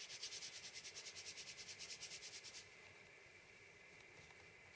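Fast, rhythmic rustling hiss of a small piece of needle-felted core wool roving being rolled back and forth between the palms to narrow and round it. The rubbing stops about two and a half seconds in.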